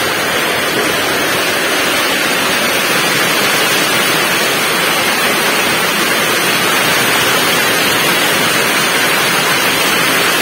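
Heavy tropical rain falling steadily, a dense, even hiss of drops on waterlogged grass, pots and paving.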